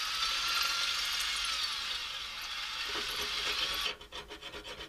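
Right-angle drill boring a bolt hole through a steel bracket, a steady, loud cutting hiss that stops about four seconds in. A quick run of small clicks and scrapes follows.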